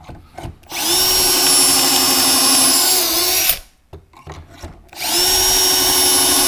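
Drill boring pocket holes in plywood through a Kreg pocket-hole jig: two runs of a steady high motor whine. The first is about three seconds long and dips briefly in pitch near its end as the bit loads. The second starts about five seconds in.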